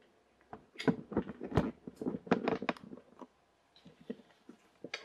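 Irregular clicks, knocks and rubbing of a camera being handled and set on a tripod, busiest in the first three seconds.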